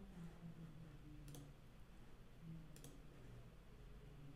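Near silence with a faint low hum and two soft clicks about a second and a half apart, from clicking through the drawing software's controls.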